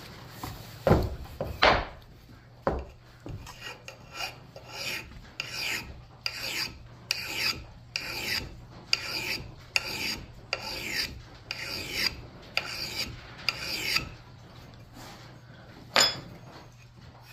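Hand file being stroked along the steel edge of a Collens double bit axe head, about two rasping strokes a second, sharpening the bit. Two loud knocks about a second in, and a single sharp click near the end.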